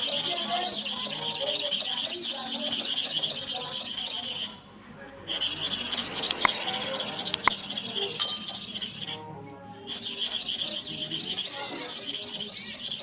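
Hair clipper blade being sharpened: steady, fast scraping of the metal against an abrasive sharpening surface, stopping briefly twice.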